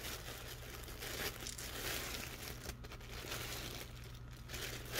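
Clear plastic bag crinkling and rustling in the hands as a toy action figure is worked out of it, a faint, irregular crackle.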